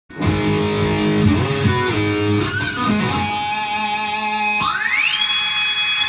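Guitar intro music of sustained notes, with one note sliding up in pitch about five seconds in and then held.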